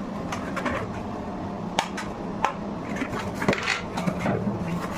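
Sharp clicks and clinks of small hard parts being handled and fitted, a few separate knocks over a steady low hum.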